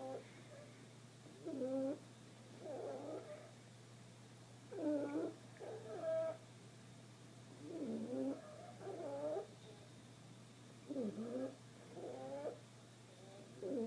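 A sleeping dog snoring, with a wavering, pitched snore on both the in-breath and the out-breath, a pair about every three seconds.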